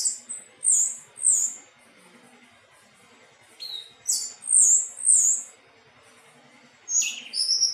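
Anis teleng thrush singing: clear, high whistled song phrases of quick sweeping notes, delivered in three short bursts with pauses between them.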